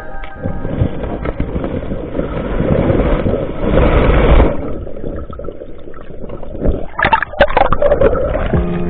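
Water splashing and sloshing, building to its loudest about four seconds in, then a cluster of sharper splashes and knocks around seven seconds in. Background music comes back near the end.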